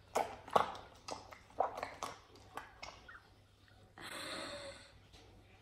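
Light-blue homemade slime squeezed and kneaded by hand: a run of short squishes, then a longer stretching sound about four seconds in as it is pulled apart.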